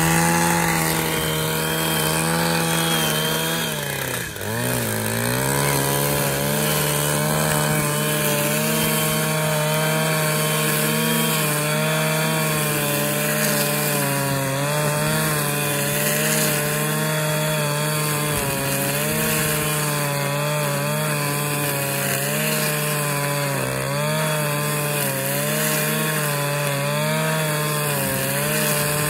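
Husqvarna 545RX two-stroke brushcutter running at high revs while its nylon-line trimmer head cuts thick grass. The engine note dips in pitch briefly about four seconds in, then climbs back and holds steady.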